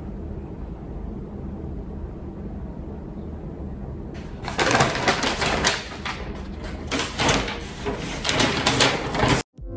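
Brown paper shopping bag rustling and crinkling loudly, on and off, for about five seconds from about four seconds in, after a steady low room hum.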